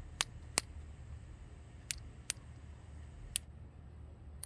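Handle of a click-type torque wrench being turned to raise its setting toward 92 foot-pounds: six sharp, separate clicks of the adjustment detents, a second or so apart.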